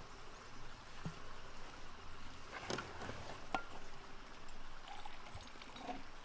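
Water poured from a flask into an enamel mug, with a few light clicks.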